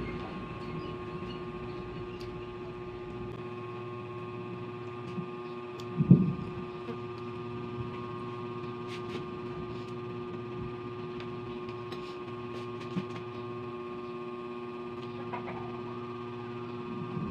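Steady electrical hum made of several even tones, with a few faint clicks and one low thump about six seconds in.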